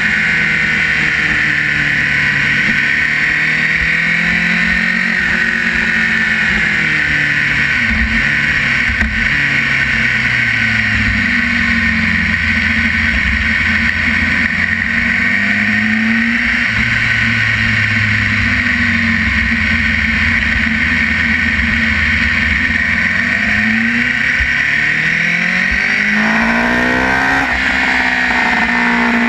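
Sport motorcycle engine running on the move, its pitch falling and rising several times, with a quick rise in revs shortly before the end. A steady rushing noise from the wind at the fairing-mounted camera sits under it.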